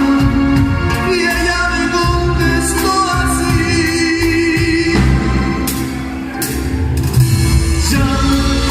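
A singer's voice over band music with a low bass line, with two crash-like hits about two thirds of the way in.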